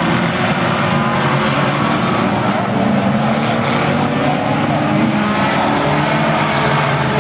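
Engines of a pack of banger racing cars running hard together as they race round the track. Several engine notes rise and fall over one another, with a steady loud mix throughout.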